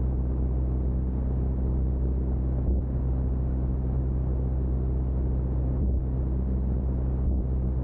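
A biplane's engine and propeller drone steadily in flight, heard with a rushing airstream over the wing.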